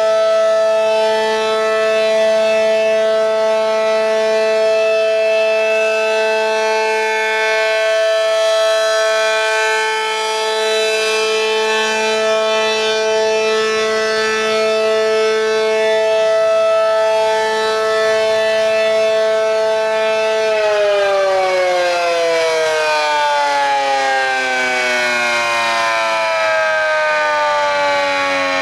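Outdoor tornado warning siren sounding a steady tone during its scheduled test. About twenty seconds in it winds down, its pitch falling slowly and evenly.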